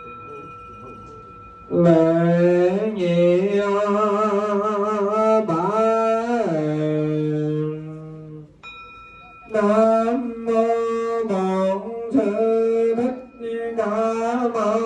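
Funeral music: a slow, wavering melody with heavy vibrato and sliding notes. A small bell rings at the start, and it is struck once more in a brief break about eight and a half seconds in, before the melody resumes.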